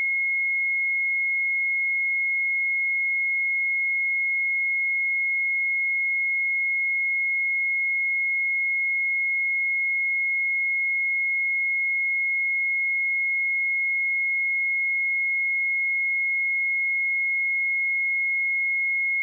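A pure 2162 Hz sine-wave test tone, a single steady high-pitched note held at constant level with no change.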